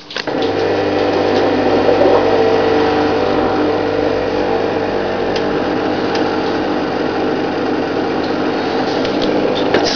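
Neff dishwasher's pump motor starting up just after the programme is started and running with a steady hum, the pump-out that opens the wash cycle before the water comes in.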